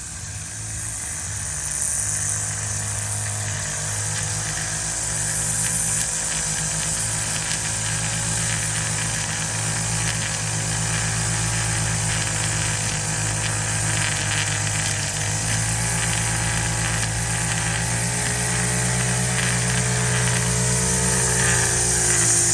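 Small two-stroke gas string trimmer running at high speed while trimming a bed edge, a steady buzzing engine note with a hiss over it, growing louder over the first couple of seconds.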